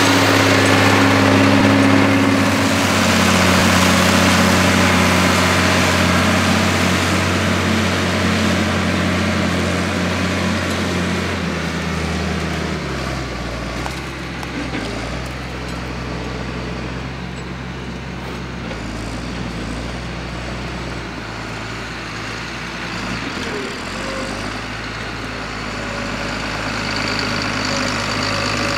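John Deere 4955 tractor's six-cylinder turbo diesel running steadily as it pulls a four-furrow plough. It is loud and close for the first twelve seconds or so, then quieter and farther off, and it grows louder again near the end as the tractor comes closer with the plough lifted.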